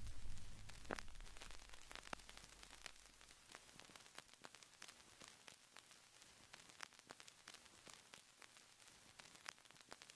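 Near silence with faint, irregular crackle and clicks like static. The last low note of the background music fades out over the first couple of seconds.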